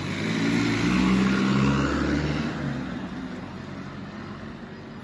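A motor vehicle driving past on the street, its engine and tyre noise swelling to a peak about a second in and fading away over the following seconds.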